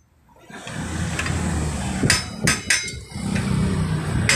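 Hammer tapping on a motorcycle's rear disc-brake assembly, during a repair of a brake that had locked up. Three quick metallic strikes come about two seconds in and another near the end, over a steady low rumble.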